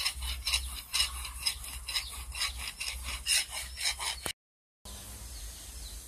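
Hand file rasping back and forth on a steel blade in quick strokes, about four a second, as the blade is sharpened. It cuts off suddenly about four seconds in, leaving a quieter steady background.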